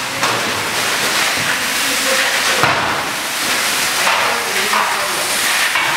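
Fire hose spraying water onto burning debris: a loud, steady hiss and splash of the water jet.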